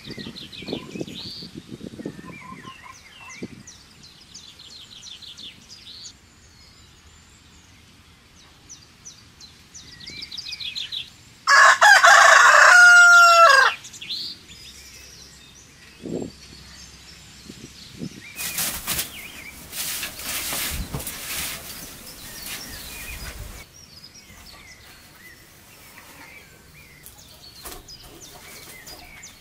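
A rooster crows once, loud, for about two seconds, a little before the middle. Small birds chirp around it, and later come several seconds of rustling noise.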